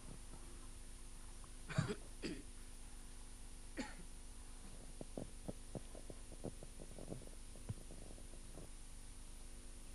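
Someone coughs twice, about half a second apart, and once more a second and a half later, picked up by a microphone over a faint steady hum. A run of soft clicks and taps follows.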